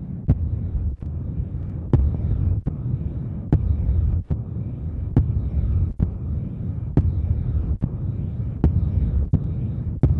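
Close-microphone ASMR ear-cleaning sounds: a muffled low rumbling throb against the microphone, with irregular sharp clicks and crackles roughly every half second to a second.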